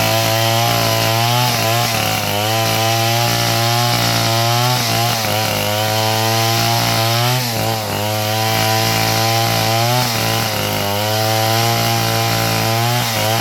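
A motor-driven sawmill running and cutting wood. The engine runs steadily, and its pitch wavers up and down every second or two as the load changes. It sags briefly about eight seconds in.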